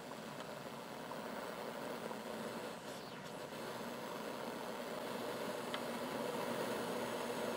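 Steady rushing hiss from a 6AU6 pentode super-regenerative receiver's speaker, the quench noise of the set super-regenerating, with a faint steady hum under it. It slowly grows louder as the front-panel control is turned.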